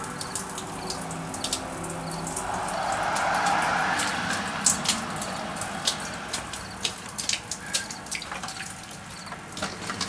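Water dripping and splashing: many small drips and spatters over a steady hiss, with a rush of water swelling for a couple of seconds a few seconds in.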